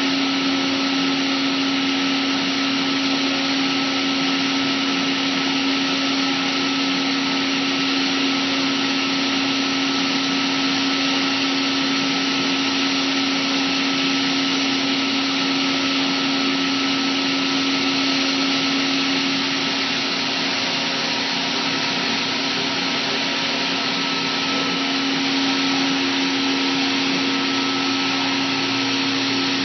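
Komo VR510 CNC router running steadily, with an even rushing noise and a steady whine. A lower hum joins near the end.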